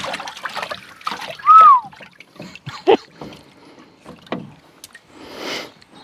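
Starter cord being wound around the flywheel pulley of a British Seagull Forty Plus outboard, with a few light knocks. About five and a half seconds in comes one pull of the cord that turns the engine over briefly without it firing: not pulled hard enough. A short high chirp that rises then falls, about one and a half seconds in, is the loudest sound.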